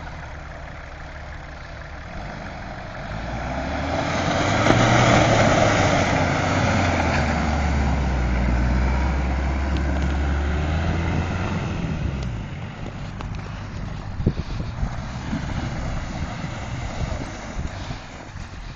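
Jeep Cherokee 4x4 driving past close by through snow and puddle ice, its engine growing louder over the first few seconds, then fading as it pulls away. A few sharp cracks come about three-quarters of the way through.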